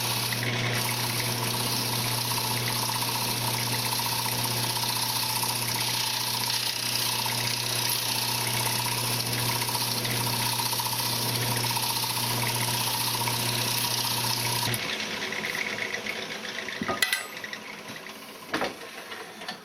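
Wood lathe running while a turning tool cleans up the face of a spinning wooden frame blank: a steady motor hum under a dense hiss of cutting. About fifteen seconds in the noise drops away suddenly, and a couple of sharp knocks follow.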